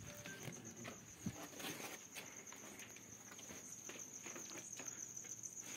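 Crickets chirping, a steady, finely pulsing high trill, with faint scattered footsteps and scuffs.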